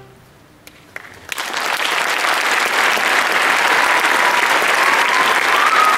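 The last notes of a school string orchestra's final chord fade away. After a short hush, audience applause breaks out about a second in and swells to full clapping.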